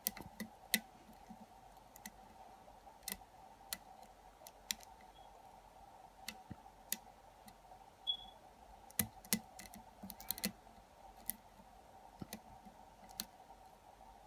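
Small, sharp, irregular metallic clicks of a lock pick and tension wrench working the pin stack of a padlock clamped in a vise, during single-pin picking. A faint steady hum lies underneath.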